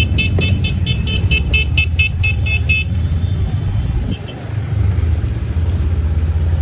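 Vehicle engine running steadily while its horn is tooted in a fast series of short beeps, about five a second, for the first three seconds, then stops.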